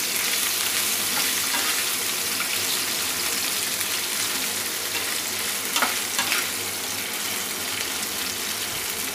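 Sliced onion and green capsicum sizzling in hot oil in a nonstick frying pan as they are stirred with a spatula: a steady frying hiss, with a few short scrapes of the spatula against the pan about six seconds in.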